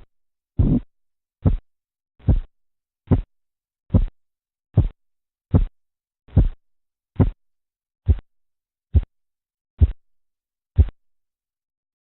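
Korotkoff sounds heard through a stethoscope over a cuff-occluded artery as the blood pressure cuff deflates. They come as regular pulse thumps about every 0.8 seconds, longer at first and growing shorter and sharper. They stop abruptly about 11 seconds in, and their disappearance marks the diastolic pressure.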